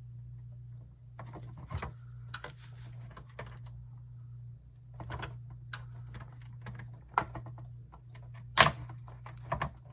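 Irregular metallic clicks, taps and scrapes as a circuit board is pried against a monitor's steel cage, with a sharper knock a little past eight seconds in. A steady low hum runs underneath.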